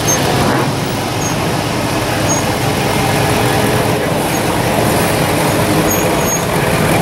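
Engines of a classic Chevelle and a T-bucket hot rod running as the cars roll slowly past in a parade, a steady low engine sound with no revving.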